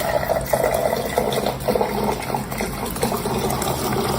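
Water running or splashing, a steady noisy rush with flickering surges.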